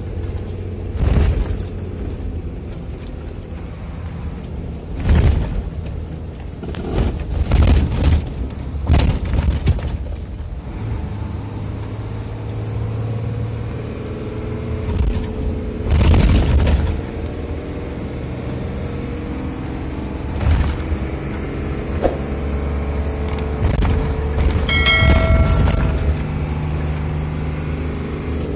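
The six-cylinder diesel engine of an Isuzu FVR 11-ton truck, heard from inside the cab while the truck is driven on a road test for low power. The engine note rises and falls with speed, and it is broken by several sharp thumps and rattles. A brief higher tone sounds about three seconds before the end.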